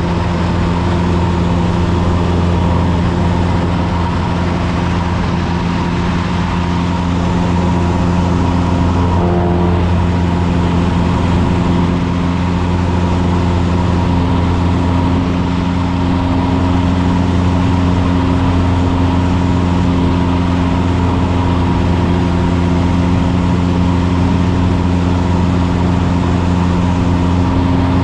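Engine and propeller of a light single-engine piston airplane in cruise, heard from inside the cabin as a steady, loud drone.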